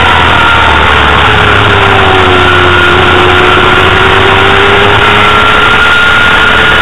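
Honda CBR250RR inline-four 250 cc engine running hard on track, heard from on board over a loud hiss of wind. Its pitch sags a little a couple of seconds in, then rises again.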